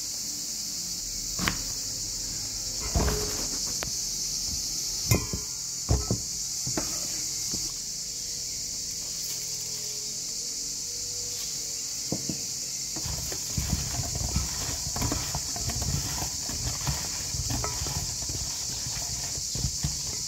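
Knife cutting eggplant on a plastic cutting board, a few separate chops in the first several seconds. Then a long run of light knocks and rustles as eggplant slices are shifted around in a stainless steel bowl, over a steady high hiss.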